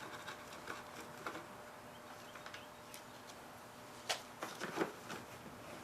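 Faint scattered clicks and handling noises from hands working on a lawnmower's plastic shrouding. A few louder sharp knocks come about four to five seconds in.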